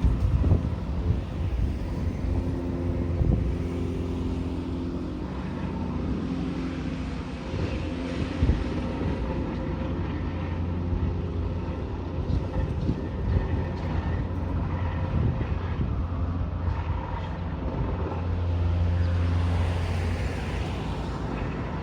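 Road traffic: vehicle engines and tyres going by, with wind buffeting the microphone. An engine hum is steady in the first few seconds, and a vehicle passes close, louder, near the end.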